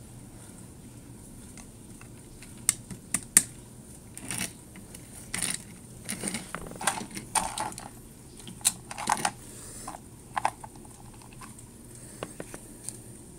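Plastic toy train pieces, a Trackmaster Thomas engine and its trucks, handled on a wooden table: sharp clicks and knocks as they are picked up and set down, with short scrapes and rattles between. Three sharp clicks come about three seconds in, and a few lighter clicks near the end.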